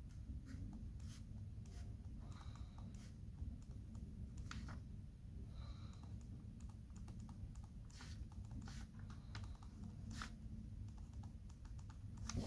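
Ballpoint pen writing on squared paper: faint, irregular taps and short scratching strokes over a low steady hum.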